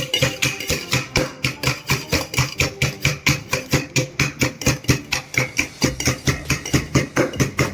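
Rapid, even knocking, about five or six strikes a second, from a mint mojito being made: the glassware and tools are worked in a steady rhythm.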